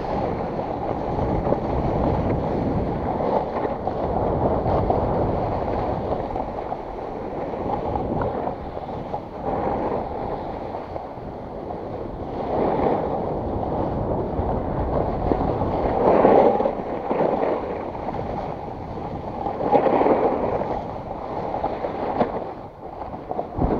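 Snowboard sliding and carving over groomed snow, with wind rushing over the microphone. The edge scrape swells louder a few times in the second half.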